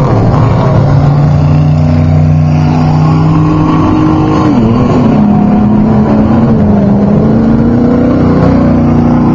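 Off-road race truck engines running loudly. The engine note drops briefly about four and a half seconds in, then climbs slowly through the rest.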